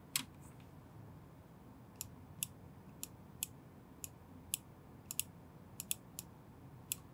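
Computer mouse clicking: about a dozen separate clicks, a few in quick pairs, over faint room tone.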